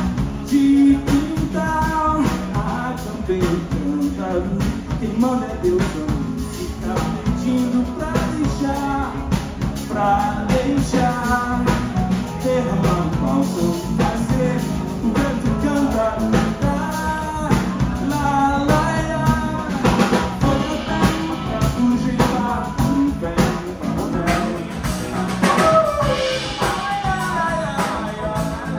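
Live band playing amplified: a singer singing over guitar, bass, keyboard and a drum kit keeping a steady beat.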